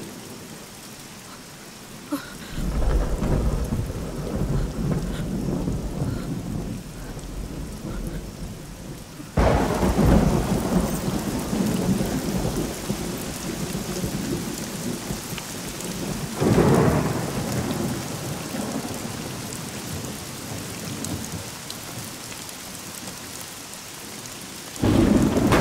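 Steady rain with rolling thunder. A rumble builds about two and a half seconds in, and sharper, louder claps come at about nine and about sixteen seconds, each fading into a long roll.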